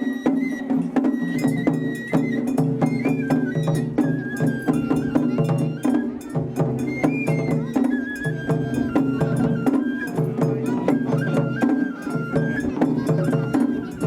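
Japanese festival hayashi music: a high flute melody stepping between held notes over fast, continuous percussion strikes.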